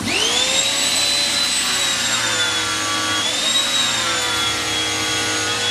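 Bosch AQT 35-12 electric pressure washer starting up as the spray-gun trigger is pulled: the motor's whine rises to speed within a fraction of a second, then runs steadily under the hiss of the water spraying from the gun's first nozzle setting.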